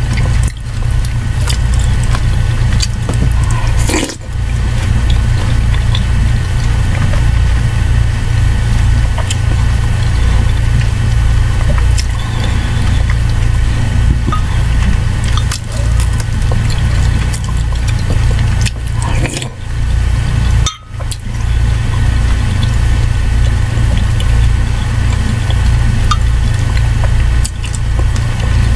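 Metal spoon stirring and scooping soup in a ceramic mug, with small clinks and liquid sounds, over a loud steady low hum.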